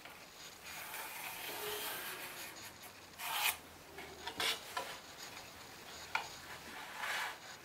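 Pencil scratching along a square as lines are marked out on a recycled-pine board, with a few short, louder scrapes as the square is shifted across the wood.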